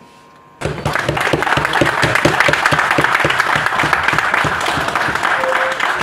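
A roomful of people applauding. It breaks out suddenly after about half a second of hush and keeps up as an even patter of many hands.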